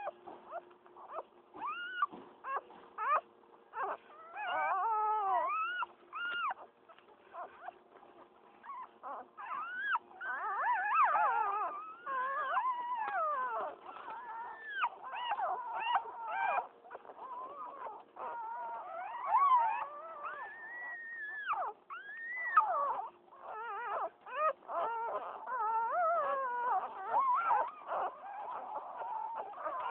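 Newborn Pitbull puppies squealing and whimpering, several high cries overlapping and rising and falling in pitch, with short pauses between.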